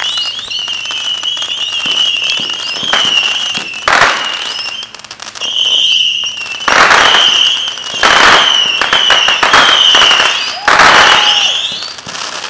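Fireworks going off: a steady, shrill whistle runs on and stops right at the end, cut into by four loud noisy blasts, the last near the close.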